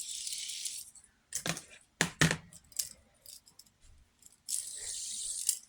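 A fidget spinner being fiddled with by hand: a few separate clicks and light clinking. A hissing rustle about a second long comes at the start and another near the end.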